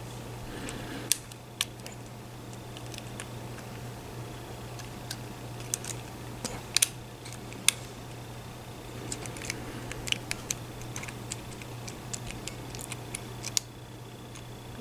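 Irregular small metallic clicks and taps of lock picks working inside a lock, over a steady low hum.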